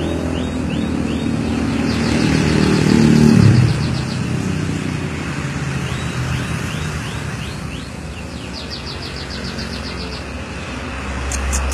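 Domestic canary singing a starling-like (jalak) song: series of short rising chirps and fast rapid trills, repeated several times. A motorcycle engine passes during the first few seconds, swelling then fading.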